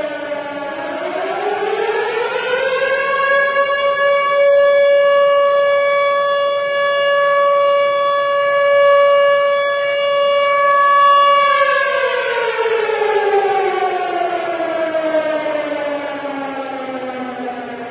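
Civil defense siren wailing: the tone dips briefly, rises for a couple of seconds to a steady high pitch held for about nine seconds, then slowly winds down.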